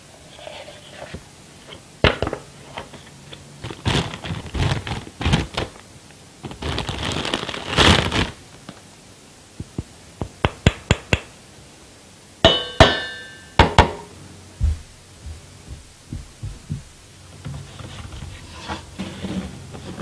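Handling noises from a coffee-grinder unboxing: gloved hands knocking and clinking a stainless steel grounds container and its plastic lid, with a stretch of plastic-bag rustling a few seconds in. A ringing metallic clink sounds twice just past the middle, the steel cup ringing as it is struck.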